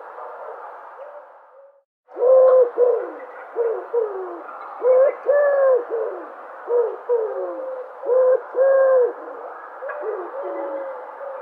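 Dove cooing: a series of short coos, many dropping in pitch at the end, over a steady hiss. The sound cuts out for a moment about two seconds in, then the coos resume, loudest in the middle and fainter near the end.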